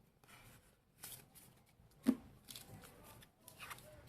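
Trading cards being handled and slid against one another, a light papery rustling, with a sharp tap about two seconds in.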